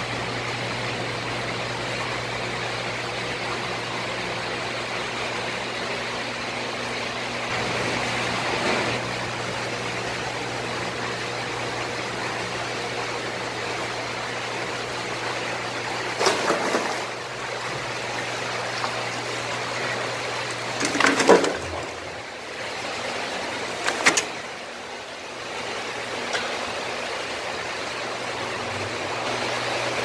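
Steady rushing of a live fish tank's aerated, circulating water with a low pump hum, broken by loud splashes about halfway through and twice more over the next several seconds as a large yellowtail is netted out of the tank and thrashes.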